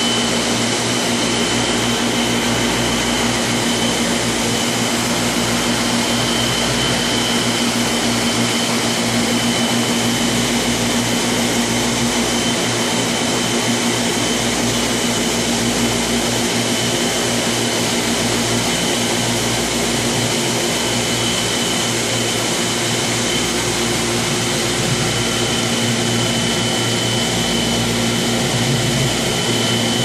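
Aquarium equipment running: a steady mechanical whir with a low hum and a thin, high whine, unchanging throughout.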